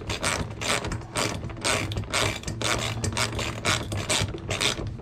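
Hand ratchet wrench clicking as it runs nuts down onto bolts, several clicks a second in quick batches with short pauses between strokes.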